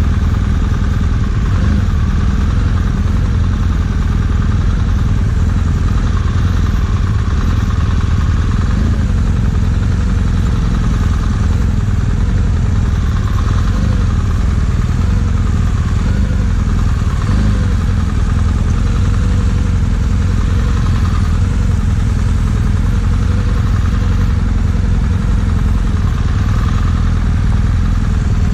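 BMW GS adventure motorcycle running steadily at low speed, its engine note wavering slightly, as on a slow-speed balance drill.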